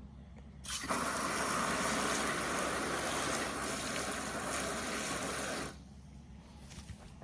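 Garden hose spraying water out of a rabbit container: a steady hiss of spray that starts abruptly under a second in and cuts off about five seconds later.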